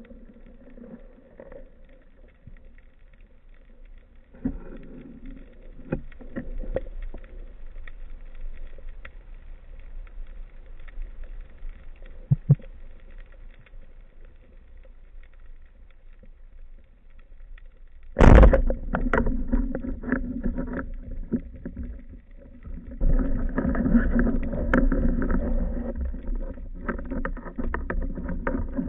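Band-powered speargun firing underwater: a single sharp, loud crack about 18 seconds in, heard through the camera housing mounted on the gun. Before it, faint water noise and light clicks; after it, louder rushing water and rattling handling noise.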